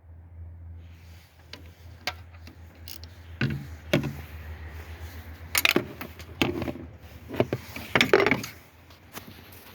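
Irregular metallic knocks, clicks and clanks of tools and parts being handled, loudest in a few clusters midway and near the end, over a low steady hum.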